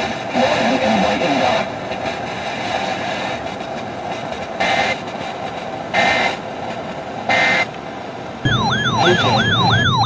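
Weather-radio static hiss, broken by three short data-burst screeches: the SAME header of an EAS alert. About eight and a half seconds in, a loud warbling alert tone starts, sweeping up and down about three times a second.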